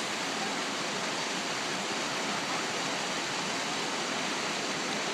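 Steady rushing of water from a small waterfall pouring off a rock ledge into a river pool.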